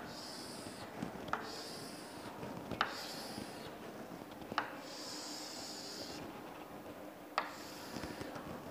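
Chalk drawing straight lines on a chalkboard: a series of dry, scratchy strokes, each lasting about a second or less. Sharp taps come as the chalk strikes the board.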